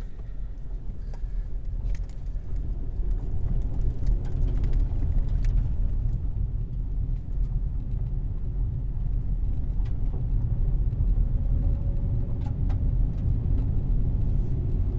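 Car cabin noise while driving: a steady low engine and road rumble that builds over the first few seconds, then holds.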